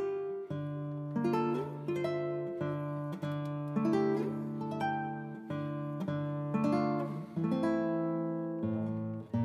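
Background music: an acoustic guitar picking a slow tune, notes and chords struck every half second to a second.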